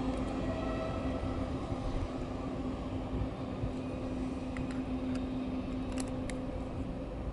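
ETR500 electric high-speed train running away: a steady low rumble with a constant hum that slowly fades, and a few faint short clicks in the second half.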